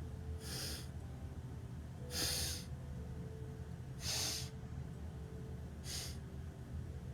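A man breathing in with four short, sharp inhalations about two seconds apart: a staged breathing exercise, drawing air in step by step to fill the lungs further.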